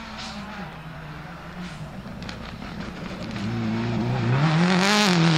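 Subaru Impreza WRX STI Spec C's turbocharged EJ20 flat-four with equal-length headers, driven hard on a gravel stage. The engine note holds fairly steady, then from about three and a half seconds in rises in pitch and grows louder as the car accelerates, dropping back in pitch just before the end.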